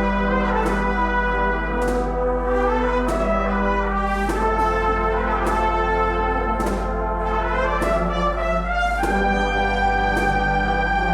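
Agrupación musical brass band playing a Spanish Holy Week processional march: trumpets or cornets and low brass in sustained chords, with sharp percussion hits at regular intervals. The band settles on a long held chord about nine seconds in.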